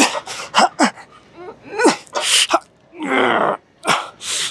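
A man grunting and blowing out hard breaths under strain while rowing a plate-loaded T-bar row: short grunts that drop in pitch, sharp exhales, and a longer strained groan about three seconds in.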